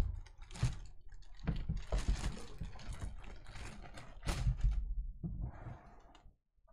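Desk handling noise: a sharp knock, then a run of uneven rustling, clicking and low thumps as things are moved about and handled.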